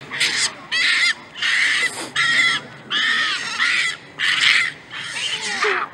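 Barbary macaques screaming in a territorial fight: a rapid run of about eight or nine harsh, high screams, each under half a second.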